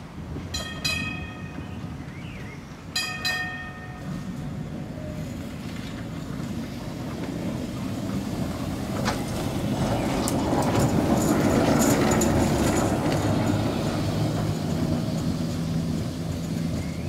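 Vintage electric tram sounding two short warning tones near the start, then rumbling past close by, its wheels clicking over the rails. The rumble is loudest about twelve seconds in and then fades a little.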